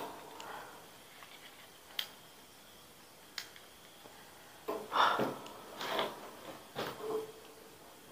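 A couple of sharp clicks, then several soft irregular crunches and scuffs, like footsteps shifting on a loose gravel floor.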